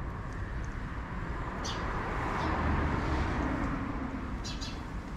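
A car passing on the road, its tyre and engine noise swelling about halfway through and fading away, with a few faint ticks on top.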